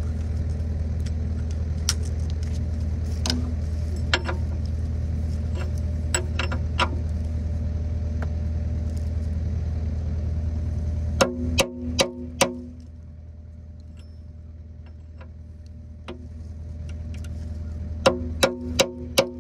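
A steady low engine hum with scattered light clicks, then hammer blows ringing on steel as a replacement excavator bucket tooth is driven into place. Four quick strikes come about eleven seconds in, after which the hum drops away, and another quick run of strikes starts near the end.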